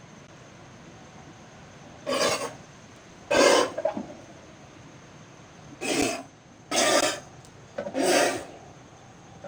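A man blowing out hard through his mouth in five short hissing puffs, spraying a mist of liquid, about a second or two apart.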